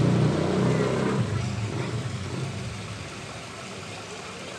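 A motor engine running steadily, fading away over the first couple of seconds and leaving a soft steady hiss.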